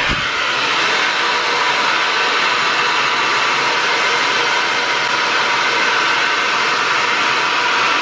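Irresistible Me Black Diamond infrared ionic hair dryer running steadily on its hot setting: an even rush of air with a faint motor whine, blowing on wet hair.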